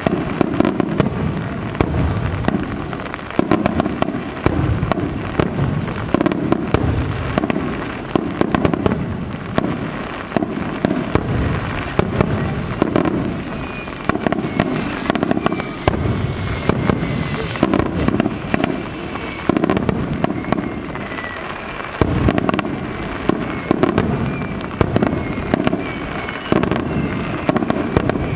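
Aerial fireworks display: shells bursting in quick succession, a dense barrage of booms and crackles, with whistling tones from rising shells in the second half.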